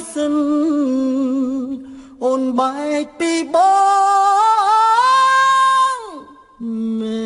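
A singer's voice in a Khmer song, holding wavering notes with short breaks, then one long held note from about three and a half seconds in that steps up and slides down to fade out about six seconds in. The song picks up again just before the end.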